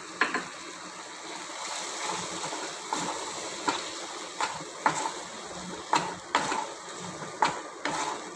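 Wooden spatula stirring a thick sauce in a nonstick kadai, knocking and scraping against the pan at irregular intervals over a steady sizzle and bubbling from the pan.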